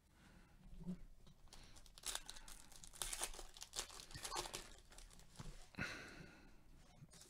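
Foil wrapper of a baseball card pack being torn open and crinkled in gloved hands: a string of irregular faint crackles and rips that dies away near the end.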